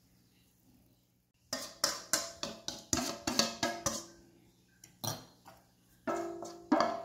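Background music with plucked, percussive notes on a quick, even beat, starting about a second and a half in after near silence.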